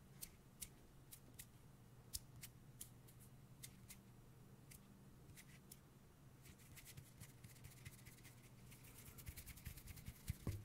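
Light, crisp fingertip clicks and taps on condenser microphones, one or two a second at first and coming much faster near the end, over a faint low hum.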